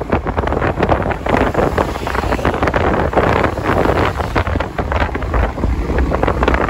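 Loud wind buffeting the microphone of a moving motor scooter, an uneven rushing rumble with rapid gusty flutter.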